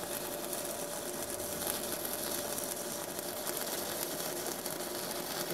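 Stick-welding arc crackling and sizzling steadily as a 3/32-inch E7018 electrode burns on a mini inverter welder set to 110 A, reverse polarity; the arc holds smooth and steady.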